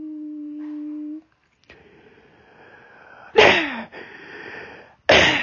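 A person's voice making cartoon sound effects by mouth. A held, hummed note sinks slightly in pitch and stops after about a second, then a faint breathy hiss. Two sudden loud noisy bursts follow, the first about three and a half seconds in with a falling pitch, the second near the end.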